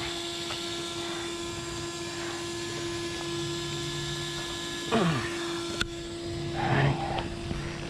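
A steady hum, with a single sharp click about six seconds in.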